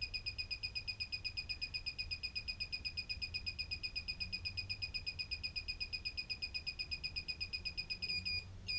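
Ninebot One E+ electric unicycle beeping rapidly, about six high-pitched beeps a second, with its power button held down through the reset-mode cycle. The beeping breaks off for a moment near the end and starts again.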